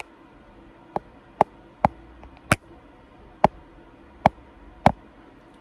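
A vape pen clicking close up: seven sharp, unevenly spaced clicks, starting about a second in.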